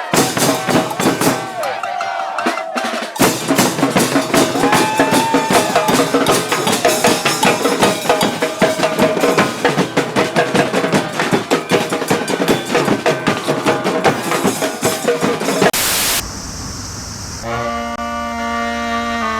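Street band of drums and horns playing: fast, loud percussion with a horn line held over it. About sixteen seconds in it cuts off, and after a short burst of noise a brass band holds layered chords.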